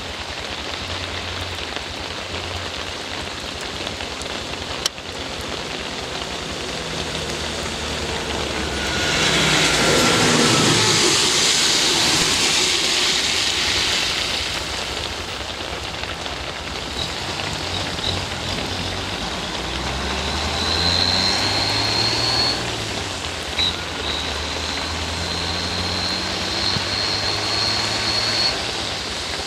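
Steady rain falling on a wet road. About nine seconds in, a bus and a car pass by, and their tyres hiss loudly through the water for several seconds before fading.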